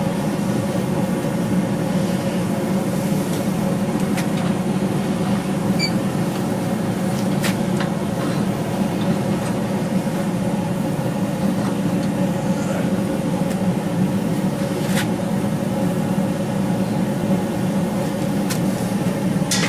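Steady drone of forge equipment running, a continuous roar with a low hum, with a few faint clicks over it.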